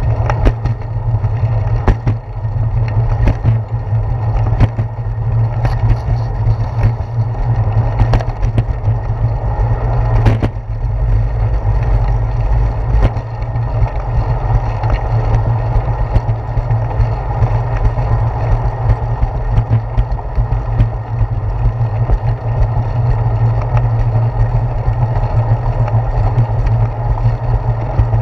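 Bicycle riding on a concrete path, heard through a handlebar-mounted GoPro Hero 4: a steady low rumble of wind and road vibration. Several sharp knocks in the first half come from the tyres crossing the sidewalk's slab joints.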